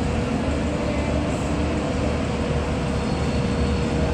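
Aircraft engines running, a steady low rumble with a constant hum, neither rising nor falling.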